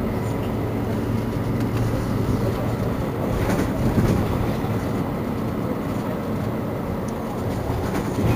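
Mercedes-Benz Citaro C2 city bus idling at a stop: a steady diesel engine rumble with a low hum, swelling briefly a little louder about four seconds in.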